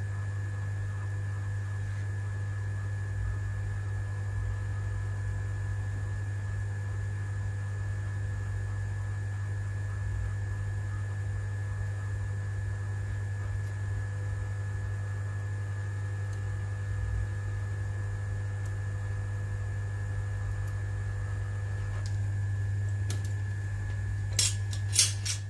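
Hot-air rework station blowing steadily onto a phone logic board: a steady hum with a thin high whine. About 22 seconds in, the air noise thins out, and two sharp clicks follow near the end.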